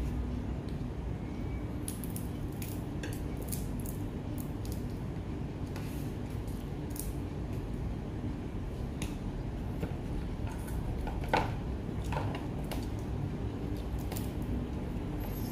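Steamed mud crab being picked apart by hand and eaten: scattered sharp clicks of shell and a fork against the plates, with one louder crack about eleven seconds in, over a steady low hum.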